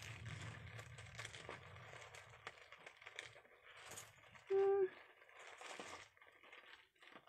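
Loose sewing buttons clicking and rattling as they are handled and sifted. A short steady hummed tone about four and a half seconds in is the loudest sound.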